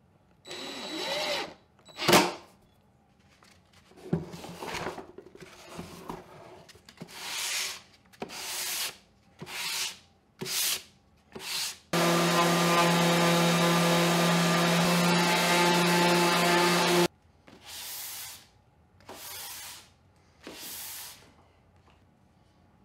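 A series of short rubbing strokes with a sharp click about two seconds in. Then an electric orbital sander with a vacuum hose attached runs steadily for about five seconds and cuts off suddenly. Three more brief rubbing strokes follow.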